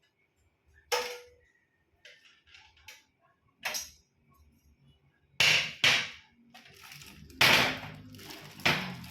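A series of sharp knocks and clatters of hard objects being handled, getting louder and closer together from about five seconds in, with a steady low rumble underneath from about six and a half seconds on.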